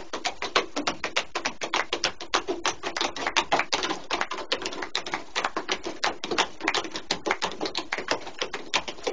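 A child's shoes tapping and stamping on wooden deck boards as he dances: a rapid, uneven clatter of hard taps, about six a second.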